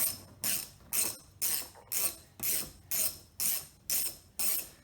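Hand ratchet wrench backing out a bolt, its pawl clicking in a steady rhythm of about two strokes a second.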